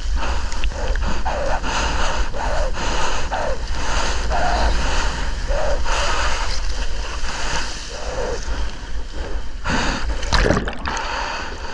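Water rushing and splashing around a surfboard as a surfer rides a wave, with wind rumbling on the microphone.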